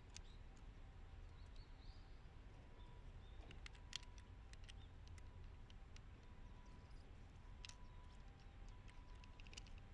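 Near silence with a few faint, sharp clicks, the loudest about four seconds in and a quick run of them near the end: the small mechanical clicks of an Olympus OM-2 35 mm SLR being handled while film is loaded.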